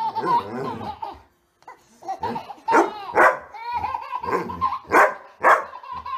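A dog barking, a run of sharp barks about half a second apart in the second half, with a baby laughing between them.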